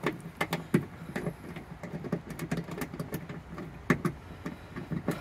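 Small, irregular metallic clicks and taps from a socket on an extension as a 10 mm bolt is unscrewed by hand from the seatbelt anchor. A couple of the clicks are louder, about a second in and near four seconds.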